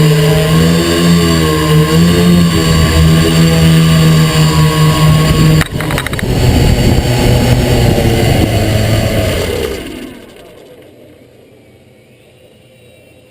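Quadcopter's electric motors and propellers whirring loudly close to the camera, pitch wavering with the throttle. About six seconds in there is a brief break, then the motors wind down and stop about ten seconds in, leaving quiet room sound.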